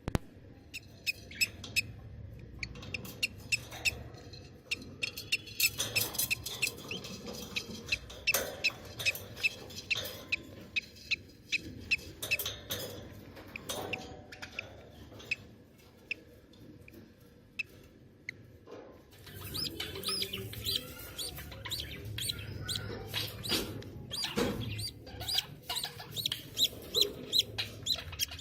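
Budgies chirping: quick runs of short, high chirps, with a lull of a few seconds past the middle before the chirping picks up again.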